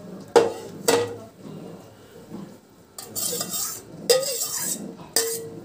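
Cooked rice being scraped from a bowl into a metal colander: two sharp, ringing clinks close together near the start, two short scraping rustles in the middle, and a third ringing clink near the end.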